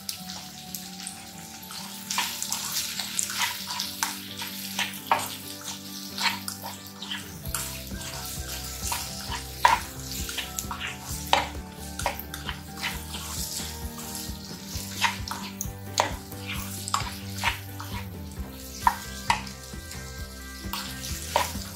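A slotted plastic spatula scrapes and knocks against a nonstick kadai as potatoes, green peas, onion and tomato are stirred over the heat. The strokes come irregularly, one or two a second, over a light frying sizzle.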